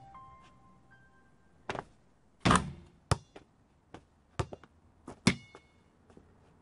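A basketball striking the hoop and bouncing on a hard court: a string of separate sharp thuds, the loudest about two and a half seconds in, some with a brief metallic ring.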